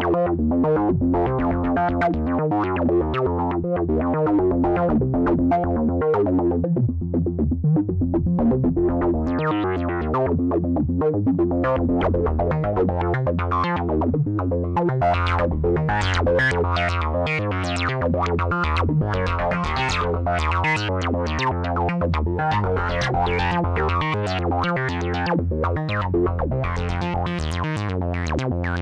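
Korg Modwave wavetable synthesizer playing a preset: a fast pulsing run of short notes over a steady low bass note, the tone growing brighter about halfway through.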